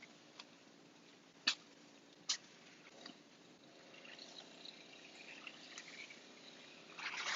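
Two sharp clicks in a quiet room. Then faint high-pitched animal sounds build up and grow louder near the end.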